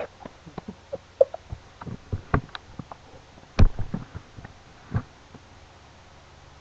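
Irregular knocks, bumps and clicks of handling noise picked up by a laptop's built-in microphone. The loudest thump comes about three and a half seconds in, and they stop shortly after five seconds, leaving a low hum.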